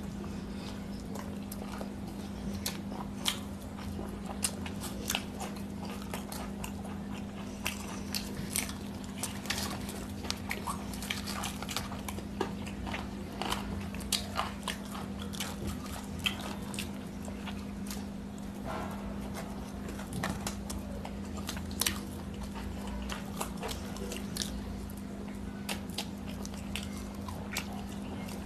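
Two people eating chicken curry, rice and puri with their hands: chewing and wet mouth clicks, many short clicks scattered throughout, over a steady low hum.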